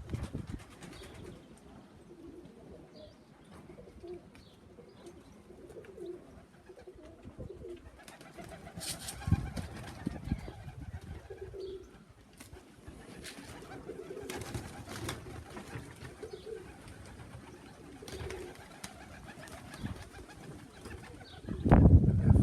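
Domestic pigeons cooing again and again in low, short calls, with a few sharp clicks and a louder burst of noise near the end.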